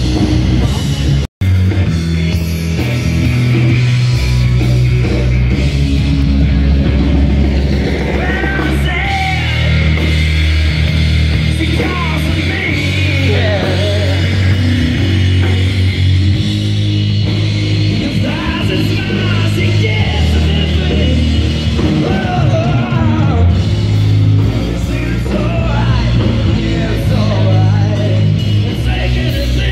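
Live rock band playing a song with a lead singer over a heavy bass line. The sound cuts out for an instant about a second in.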